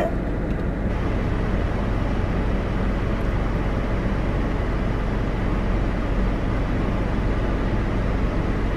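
Steady hum inside a car's cabin from the car idling, with an even hiss over it.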